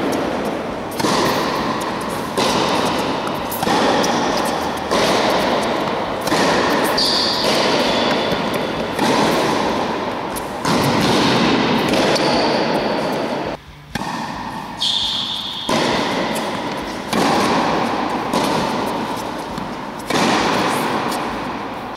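Tennis rally on an indoor court: a racket strikes the ball about every second and a half, each hit ringing out in the hall's echo. A few short high squeaks come in between.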